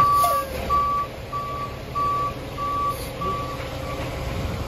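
Concrete mixer truck's backup alarm beeping about seven times at a steady pitch, roughly one and a half beeps a second, the last beep faint, while the truck's diesel engine runs underneath.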